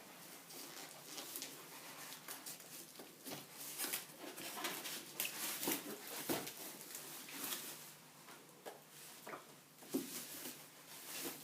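Irregular rustling and clicking of packaging being handled while a TV is unboxed.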